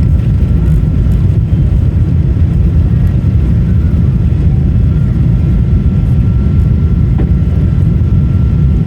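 Loud, steady rumble of a Boeing 777-200's engines and airflow heard from inside the cabin during departure, with a thin steady whine above it.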